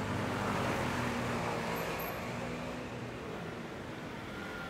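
A motor vehicle's engine running close by, with a low steady hum under a wash of road noise, loudest about a second in and then slowly fading.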